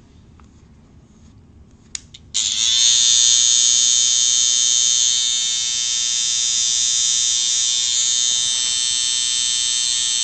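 Electric hair clippers switched on with a click about two seconds in, then running with a steady, high-pitched buzz.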